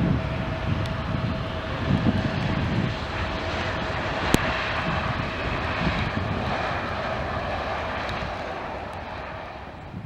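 Jet airliner engines roaring with a steady whine, swelling through the middle and fading near the end as the aircraft passes. Strong wind gusts buffet the microphone, and there is a single sharp click a little past four seconds in.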